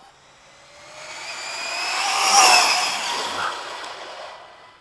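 ARRMA Typhon 6S BLX RC buggy speeding past at high throttle on a speed run: its brushless motor whine and tyre hiss on asphalt build up, peak a little past two seconds in, and drop in pitch as it passes and fades away.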